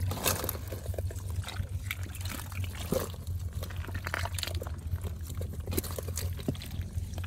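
Water splashing and trickling as hands scoop small fish and snails out of a shallow puddle on a spread fishing net, with many short, scattered clicks and splashes over a low steady hum.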